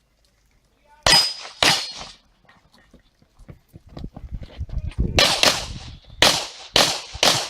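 Pistol shots on an IPSC stage just after the start signal: two quick shots about a second in, a pause with small knocks and rustles of movement, then a faster string of about five shots from about five seconds in.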